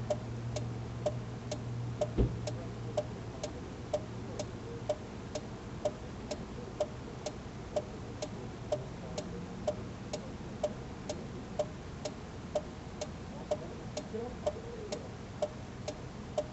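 Steady mechanical ticking, about two ticks a second, over a low hum, with a single thump about two seconds in.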